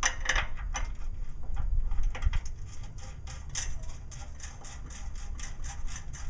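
Socket ratchet clicking in a quick, steady run of sharp ticks as bolts are tightened down.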